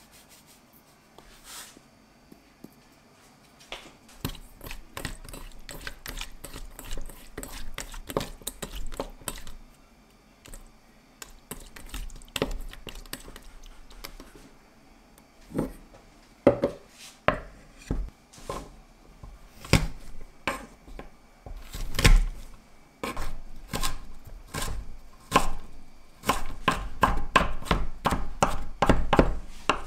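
Kitchen knife chopping garlic on a wooden cutting board, quickening into a fast, even run of strokes in the last few seconds. Before that, scattered knocks and clicks.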